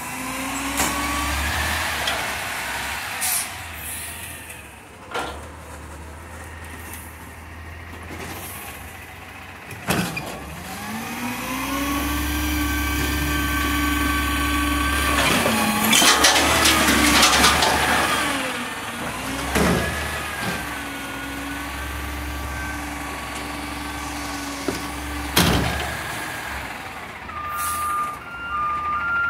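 Peterbilt 320 garbage truck with a McNeilus Meridian front-loader body revving its engine to drive the hydraulic arms as the forks lift a dumpster overhead, with a burst of clanging and rattling in the middle as the dumpster is shaken empty into the hopper. The engine revs again as the dumpster is lowered, a loud bang comes as it is set down, and reversing beeps sound near the end.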